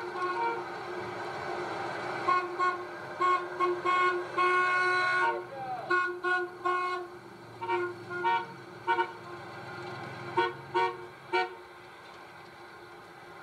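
Car and truck horns honking repeatedly as vehicles drive past: a string of short beeps and one longer blast, dying away near the end, over the steady sound of passing traffic.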